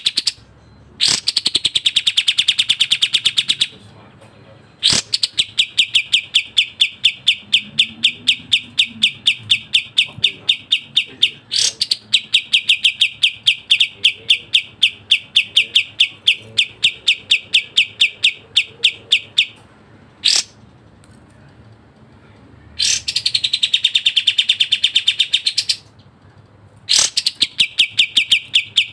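Kapas tembak songbird singing fast, tightly packed runs of repeated high notes, several a second. The song comes in bursts of a few seconds, with one long run of about fifteen seconds in the middle.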